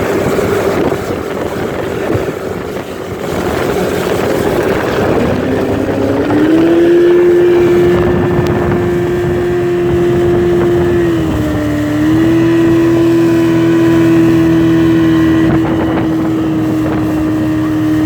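Motorboat engine with wind and water noise. The engine speeds up about five seconds in and then runs at a steady high pitch, dropping back briefly once midway before climbing again.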